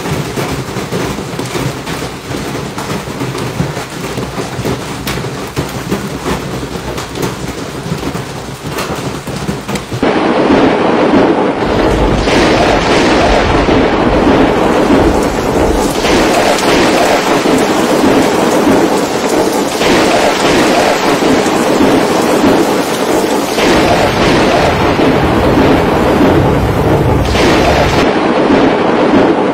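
Large hailstones pelting down hard, a dense noise of many hailstone impacts on pavement and nearby cars. It gets much louder about ten seconds in.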